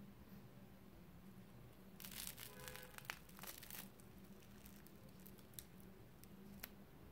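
A slice of toast torn in half by hand: a faint crackle of crust breaking, starting about two seconds in and lasting around two seconds, followed by a few soft clicks.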